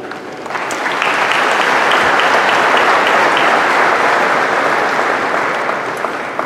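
Audience applauding, starting about half a second in, strongest early on and slowly dying away.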